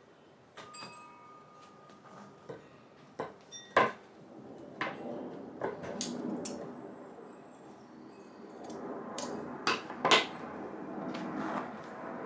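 Scissors snipping a series of small relief cuts into carpet covering a curved panel edge: a few sharp snips spread through, over the soft rustle of the carpet being handled.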